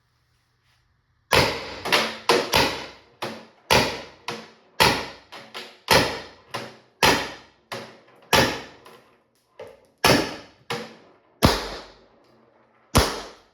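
Beeman BP50 CO2 launcher fired over and over with an empty magazine: about twenty sharp gas pops in quick, uneven succession, some weaker than others, counting down the shots left in the CO2 cartridge.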